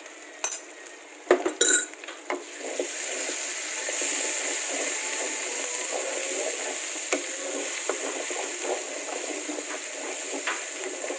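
Chili and spice paste frying in oil in a pan: a few sharp clinks of a utensil against the pan at first, then a steady sizzle that swells about two and a half seconds in, with the scrape and clatter of stirring.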